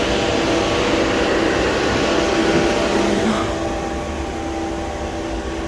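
Evaporator fan of a Euro Frigo C3500 truck refrigeration unit running steadily, a rushing of air over a steady mechanical hum; the fan works despite the unit's AL6 alarm. The rushing lessens a little about halfway through.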